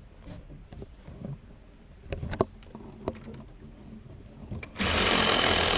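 Reciprocating saw (Sawzall) cutting through a tree limb: it starts abruptly near the end and runs loud and steady. Before it, a few light knocks and rustling as the leafy limb is handled.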